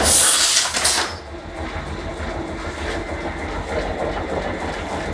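A 1970 Heidelberg platen letterpress running with a steady rhythmic mechanical clatter, pulling a make-ready impression without ink. A loud hiss fills about the first second.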